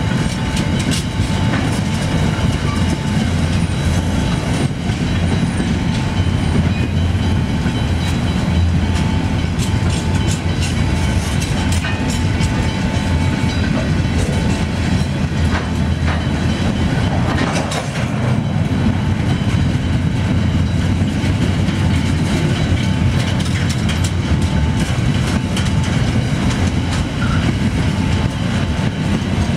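Empty steel flat wagons of a freight train rolling steadily past, the wheels clacking over the rails over a continuous low rumble.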